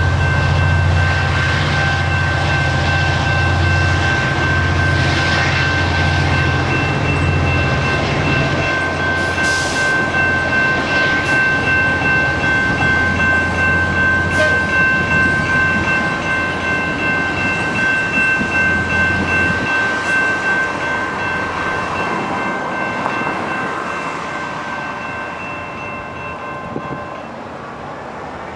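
A passing GO Transit commuter train of bilevel coaches rumbles by with a regular clacking of wheels over rail joints, while the level-crossing bell rings steadily. The bell stops near the end as the train draws away and the sound fades.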